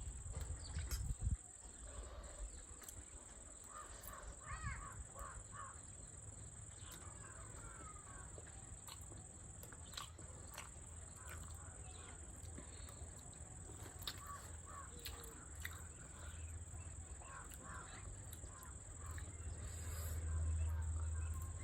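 Faint birds calling outside, short wavy calls scattered through, over a steady hiss with many small clicks and taps. A low rumble swells near the end.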